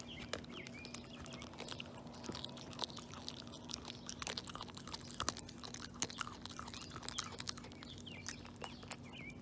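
Maltese dog chewing and licking a piece of raw bone-in chicken, giving faint, irregular wet clicks and bites.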